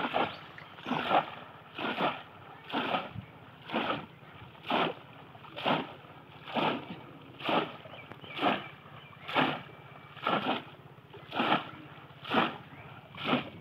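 Water splashing as two conical bamboo polo fish traps are plunged again and again into shallow pond water, one splash about every second.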